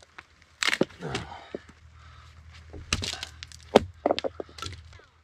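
An axe splitting a rain-soaked log that is rotten on the outside and dry inside, with several sharp blows and the wood cracking and splintering. The loudest blow comes past the middle.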